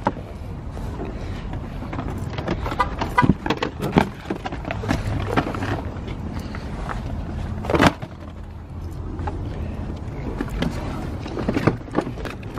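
Boxes and toys being shifted around in a packed car trunk: scattered knocks, taps and cardboard handling, with one heavier thump about eight seconds in. A steady low rumble runs underneath.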